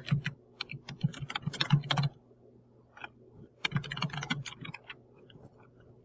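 Typing on a computer keyboard: a run of quick keystrokes for about two seconds, a single key about a second later, then a second, shorter run of keystrokes.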